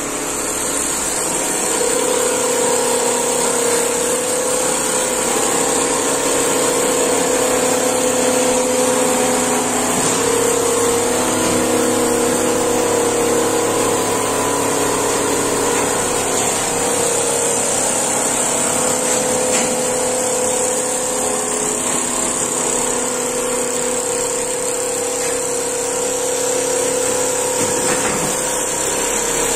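Richpeace single-head computerized quilting machine running, its needle head stitching, with a steady mechanical hum and motor tones that shift in pitch every few seconds as the head travels.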